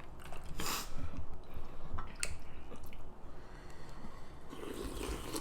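Close-miked chewing and eating of seafood-boil food, with a short noisy burst about half a second in and a few sharp clicks about two seconds in.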